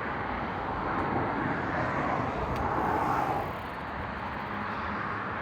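Outdoor road noise: a motor vehicle passing, a rush of tyre and engine noise that swells and then fades about three and a half seconds in.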